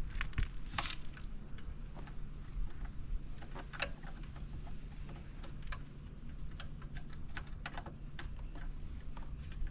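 Irregular light clicks and taps of hand tools and small parts being handled while working on an RV water heater's thermostats, over a steady low hum.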